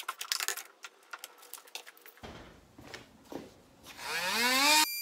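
Clicks and rattles of small parts being handled in a plastic accessory case, then near the end a Dremel rotary tool is switched on, its motor whine rising steeply in pitch as it spins up to speed.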